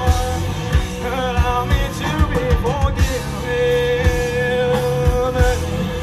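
Live rock band playing a song, with regular drum hits under long held notes.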